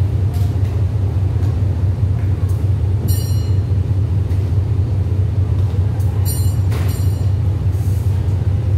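A diesel-hauled passenger train standing at the platform with its engine idling: a steady low hum. Two brief high chirps come about three and six seconds in.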